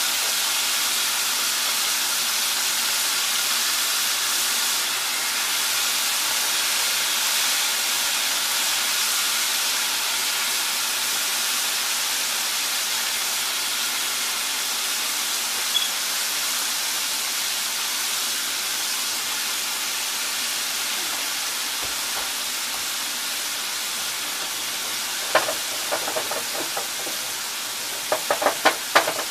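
Breaded chicken gizzards deep-frying in a pot of hot oil, a steady, loud sizzle. Near the end a few short, sharp clicks cut through it.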